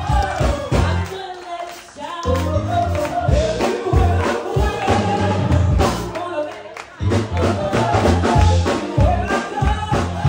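Live gospel music: a woman singing into a handheld microphone over a band with a heavy bass line and a steady drum beat, played through the room's loudspeakers.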